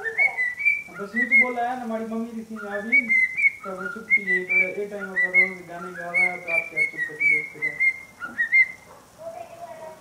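Cockatiel whistling and warbling: repeated phrases of short high whistled notes, many sliding upward, run together with lower warbling chatter. It falls quiet about nine seconds in.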